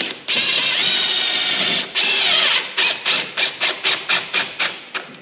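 Cordless drill running up into the underside of a white oak stair platform through its steel frame: a long steady run, a second run that drops in pitch as it loads, then a string of short trigger bursts about four a second.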